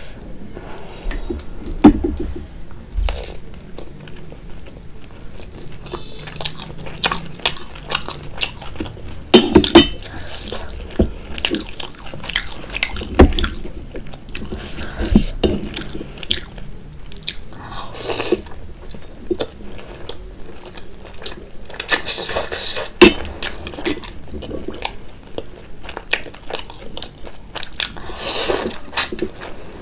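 Close-up eating sounds: biting and chewing fried momos and soupy noodles, with repeated short crunchy clicks and louder wet bursts of noodles being slurped, the last near the end.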